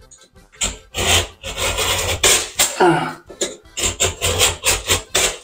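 Snap-off utility knife blade scraping and cutting along a cracked plasterboard ceiling joint, in a quick irregular series of rasping strokes. It is chamfering out old, painted, hard joint filler so the crack can be refilled.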